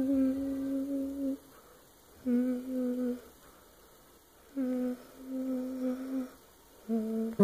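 A person humming long, steady held notes in four phrases with short silent gaps between them, the pitch sinking a little toward the end.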